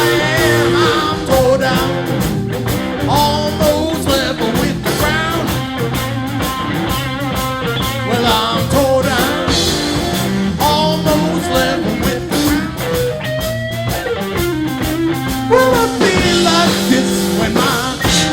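Blues band playing an instrumental passage: a lead guitar bends and slides its notes over bass and a steady drum beat.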